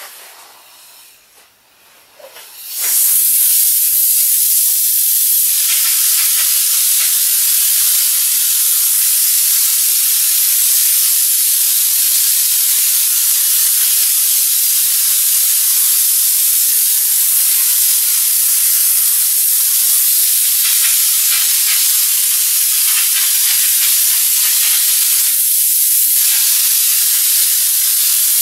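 Drywall hopper gun spraying popcorn ceiling texture: compressed air blowing through the gun gives a loud, steady hiss. It starts about three seconds in and holds without a break.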